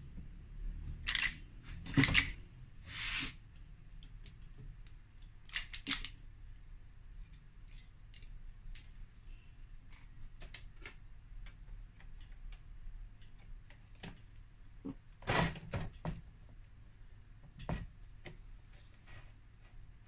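Hand work on the refrigerator door with tools and small metal parts: scattered light clicks and clinks, with a few short scrapes in the first seconds, again about six seconds in, and near the end.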